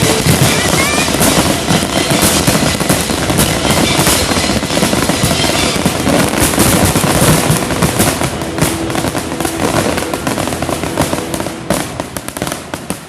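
A dense, continuous barrage of fireworks: rapid bangs and crackling overlapping one another, thinning out and fading near the end.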